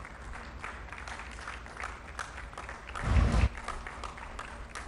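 Applause with distinct individual hand claps, and a brief low rumble about three seconds in.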